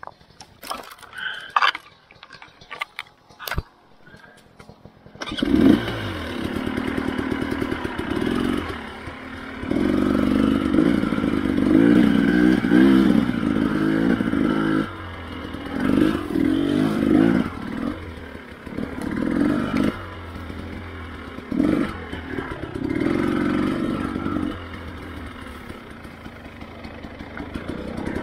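A few light snaps and clicks. About five seconds in, a dirt bike engine starts, and the bike rides off with the throttle opening and closing in bursts.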